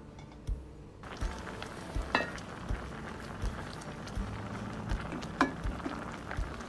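Pumpkin pieces boiling hard in water in a pot, a steady bubbling hiss that sets in about a second in, while a wooden spatula stirs them. The spatula knocks against the pot twice.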